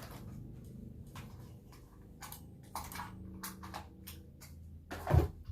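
Handling noise from a ring light's USB cable and plug: scattered light clicks and taps, with a louder thump about five seconds in.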